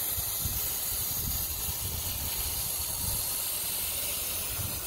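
Garden hose spray nozzle running at low pressure, a steady hiss of water showering onto wet potting soil in a plastic container pot.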